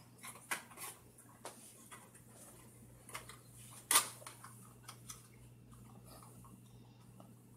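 Light plastic clicks and knocks of play-kitchen toy pieces being handled, the sharpest about four seconds in, over a faint steady hum.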